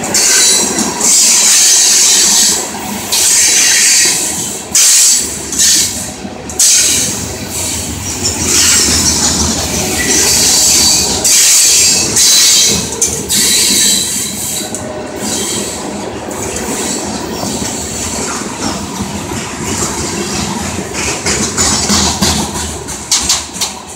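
Hopper cars of a CSX rock train rolling past close by, with steady wheel-on-rail noise. Loud, high-pitched wheel squeal and hiss comes in surges through the first half, then the noise settles lower and fades as the last cars go by.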